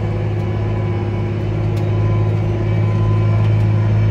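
Tractor engine running steadily as heard inside the cab while it tows a fertilizer spreader through a wet field: a deep, even hum that grows slightly louder about two seconds in.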